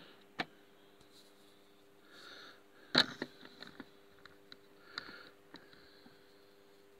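Faint nasal breathing and sniffs close to the microphone, with a few sharp clicks, the loudest about three seconds in, over a faint steady hum.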